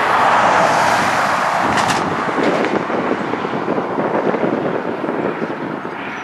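Jet engines of an Airbus A330-200 in reverse thrust during the landing rollout: a loud, rushing engine noise that swells over the first second or two, then eases off as the aircraft slows.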